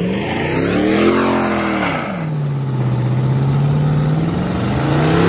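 Pickup truck engine revving up and back down twice as it pushes a wrecked car through mud, with a hiss of tyre and scraping noise during the first rev.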